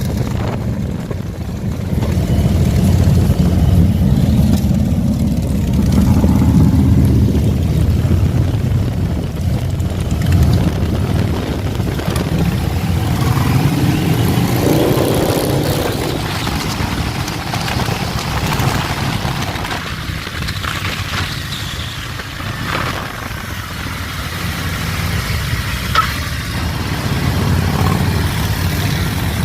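Harley-Davidson V-twin motorcycle engines running as a group of motorcycles rides in tight formation, the engine note rising and falling with speed around the middle.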